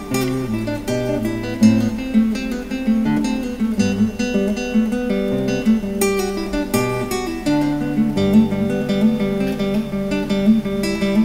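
Background music: an acoustic guitar tune of plucked notes over changing low bass notes.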